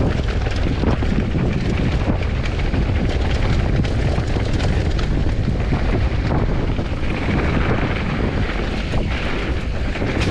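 A mountain bike descending a rocky dirt trail: tyres rolling over dirt and rock with frequent small knocks and rattles, under steady wind buffeting on the action camera's microphone.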